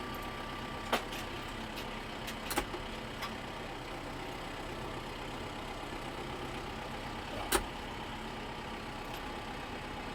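Tractor engine idling steadily, with a few sharp knocks about one, two and a half, and seven and a half seconds in.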